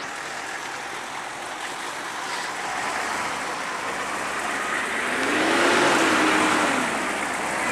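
A road vehicle passing, its steady tyre and engine noise swelling to a peak about six seconds in, then easing off.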